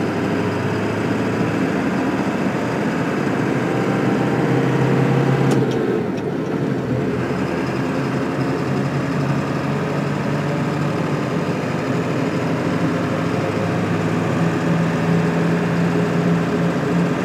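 Ford pickup truck's engine and road noise heard from inside the cab while driving slowly, towing a loaded trailer. A steady hum whose pitch shifts about five seconds in and again near the end as the speed changes.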